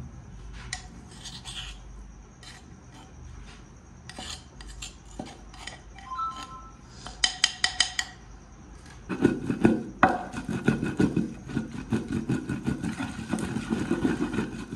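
Shardai ingredients being ground by hand with a mortar and pestle. Scattered knocks and clinks come first, then about nine seconds in a fast, steady run of louder grinding and pounding strokes.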